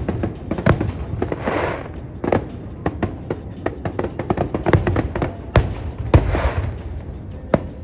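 Aerial fireworks going off: a rapid series of sharp bangs, with two bursts of crackling hiss about a second and a half in and again about six seconds in.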